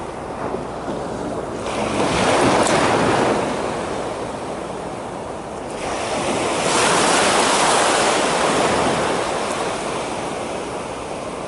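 Waves breaking on the shore: two surges that swell and fade a few seconds apart, over a steady wash of surf and wind on the microphone.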